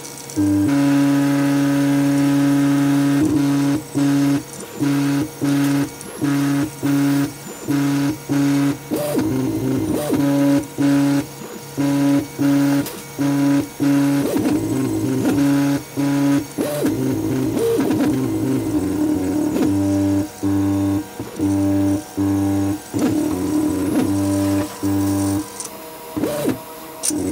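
3D printer stepper motors whining through a series of steady pitched tones. Each tone starts and stops abruptly and the pitch changes from one move to the next, many stops coming about every half second.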